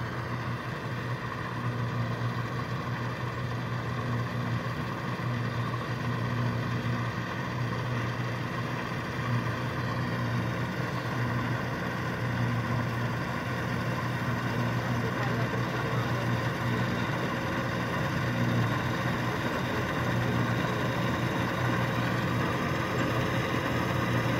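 Deutz-Fahr 4075 HTS combine harvester running at a steady, unchanging pitch, growing slightly louder toward the end.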